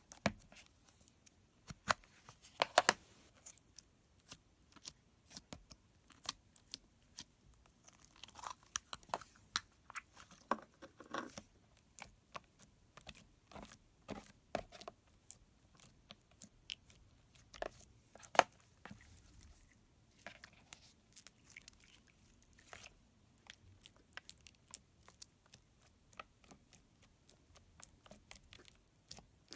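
Fingers poking and pressing glossy slime, giving many small, irregular pops and clicks, with a few louder snaps.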